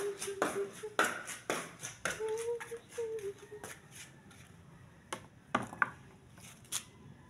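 A phone being handled close to its microphone: a run of irregular clicks and taps from fingers and movement against the phone.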